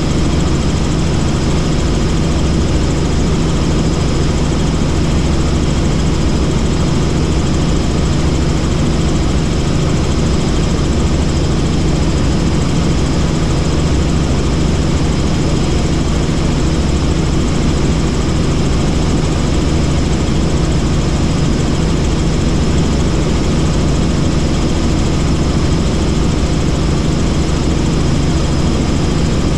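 Helicopter in flight: the steady drone of its engine and rotor with an even rushing noise, unchanging throughout.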